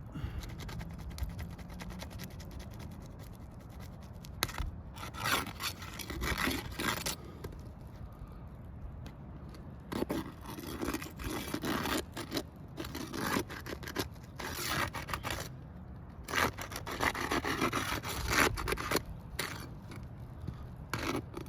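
Asphalt shingles being scraped and pried loose from the roof deck during a repairability test, in irregular scraping and tearing bursts.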